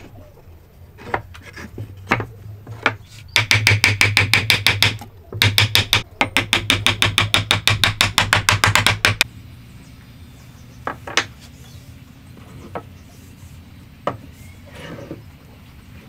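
Hammer tapping quickly on a wooden beam, driving a spliced timber joint home. There are two runs of fast, even taps, about eight a second, with a brief pause between them, and a few single knocks before and after.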